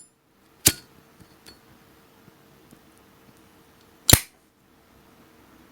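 Metal clicks from a Zippo lighter: a ringing clink just under a second in, a few faint ticks, then a louder sharp snap about four seconds in, the sound of its hinged lid being worked.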